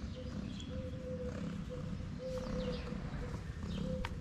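Domestic cat purring close up while being stroked: a steady low rumble that pauses and picks up again with each breath.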